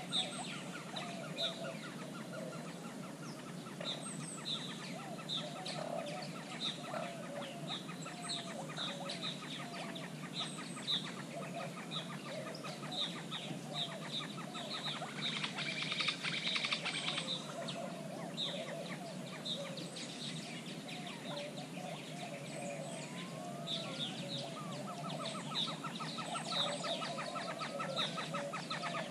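Mixed bird calls: plain chachalacas clucking low while they feed, under repeated high chirps from other birds. A fast series of repeated notes comes in over the last few seconds.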